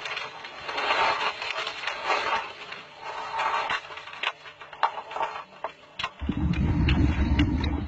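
Scuba diver breathing underwater through an open-circuit regulator: pulses of hiss with small clicks, then from about six seconds in a loud low rumble of exhaled bubbles.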